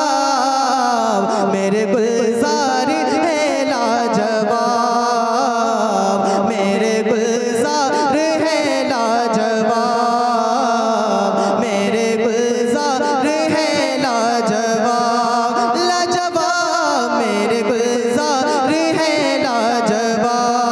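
A man singing a naat through a stage microphone, drawing out long wavering melismatic phrases with no break.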